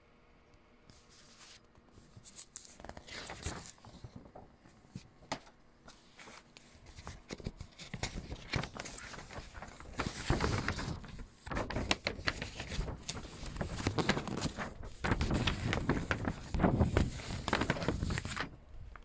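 Paper rustling and crackling as a large folded printed sheet is handled and unfolded, in irregular bursts that grow denser and louder and stop near the end.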